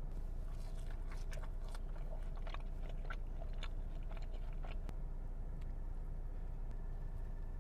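Close-up chewing of crisp food, with a quick run of sharp crackling clicks for the first five seconds or so and fewer after that, over a steady low hum.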